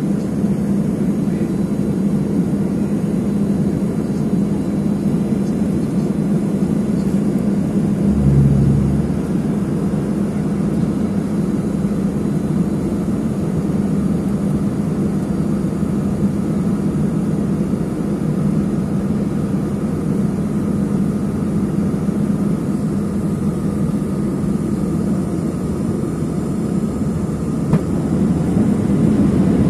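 Cabin noise inside an Embraer ERJ-145 regional jet on approach: the steady drone of its two rear-mounted turbofans and the airflow, with a constant hum. A brief low thud about eight seconds in.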